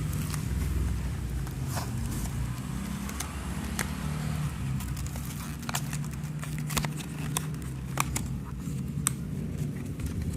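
Steady low motor hum in the background, with scattered small clicks and crackles of the power bank's cardboard and plastic packaging being handled.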